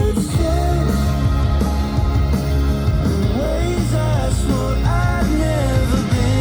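A song with a sung vocal and a strong bass line playing through a Harman Kardon Go + Play 3 portable Bluetooth speaker as a sound test.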